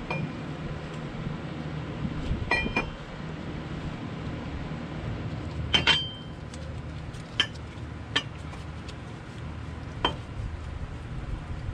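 Scattered metallic clinks and taps as an ACT clutch pressure plate and disc are held up and fitted onto the flywheel by hand. There are about six of them, and the loudest, about six seconds in, rings briefly.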